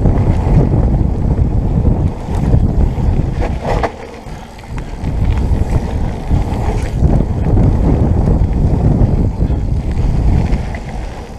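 Wind buffeting the microphone over the rumble of mountain bike tyres on a packed gravel trail at speed, with a few sharp rattles from the bike. The rush eases briefly about four seconds in.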